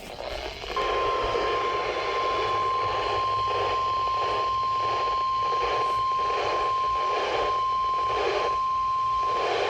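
NOAA Weather Radio 1050 Hz warning alarm tone: one steady single tone held for about nine seconds, starting just under a second in, over a hiss of radio static that pulses about twice a second. The tone signals that a warning message, here a severe thunderstorm warning, is about to be read.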